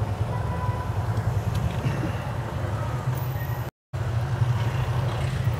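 Auto-rickshaw engine idling with a steady low rumble while the vehicle stands. The sound cuts out completely for a moment about two-thirds of the way in.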